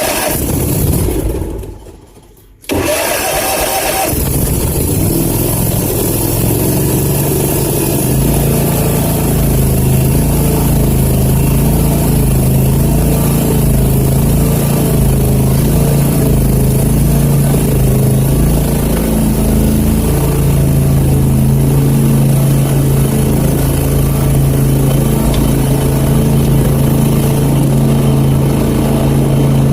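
Zero-turn riding mower's engine running, with a brief drop-out about two seconds in; from about eight seconds it settles into a steady, even note.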